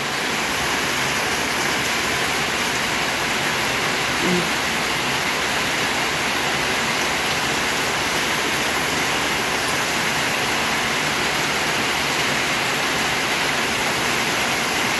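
Heavy rain falling steadily on a corrugated sheet-metal roof and the ground around it, with water running off the roof edges.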